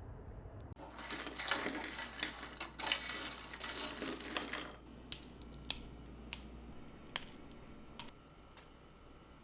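Kitchen food-preparation sounds: about four seconds of dense, crisp scratching and crackling, then five or six light, sharp clicks and taps of utensils or dishes.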